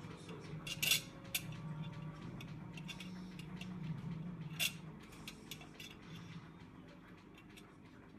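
Cutlery and dishes clinking now and then during a meal, with a few sharp clicks, the loudest about a second in, over a steady low hum.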